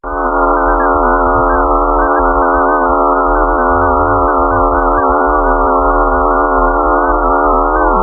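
Synthesized drone offered as the sound of a planet: a dense chord of many held tones, slightly wavering, over a low hum, cutting in abruptly.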